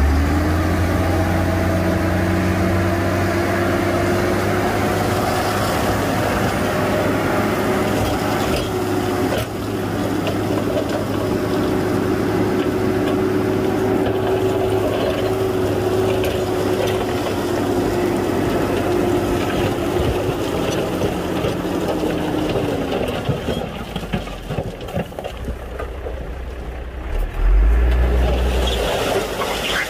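Heavy diesel earthmoving machine's engine working under load: its pitch rises right at the start, holds steady for about twenty seconds, then drops back. A deep low rumble swells up again near the end.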